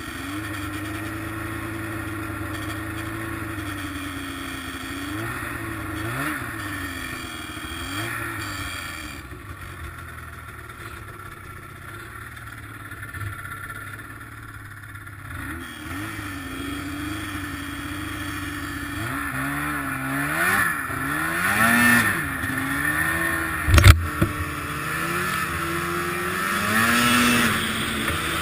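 Arctic Cat ZR800 two-stroke snowmobile engine on the move, its pitch rising and falling as the throttle is worked, with one sharp bang a little before the end. The sled still has running problems that the owner suspects come from bad injectors.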